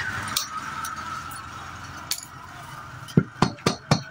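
A quick run of about six sharp taps near the end as a diesel engine's piston is driven down into its cylinder with a rod. A faint high tone fades away during the first two seconds.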